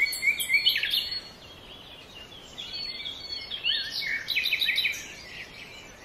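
Birds chirping and singing: a quick run of repeated notes at the start, quieter in the middle, then busy chirping again around four seconds in.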